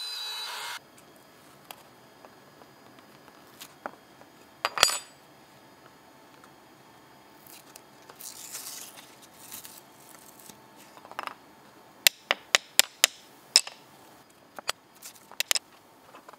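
A Makita-driven CNC router running steadily as it cuts walnut, cut off abruptly under a second in. Then quiet hand work on the spoilboard: a single sharp click about five seconds in, a brushing sound, and near the end a quick run of about eight sharp clicks from pliers working out the tiny brad nails that held the piece.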